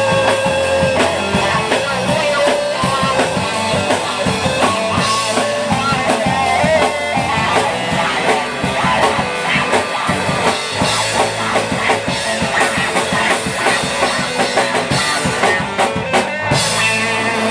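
Live rock band playing: electric guitar lines over a steady drum kit beat.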